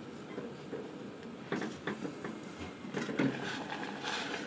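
Covered pot of herbal decoction heating on the stove toward the boil: a steady hiss that grows stronger near the end, with a few light clicks and knocks in between.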